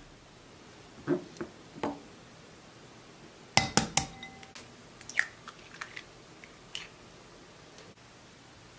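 Eggs tapped and cracked against a glass bowl: a scatter of sharp clinks and knocks. The loudest is a cluster about three and a half seconds in, with the glass ringing briefly.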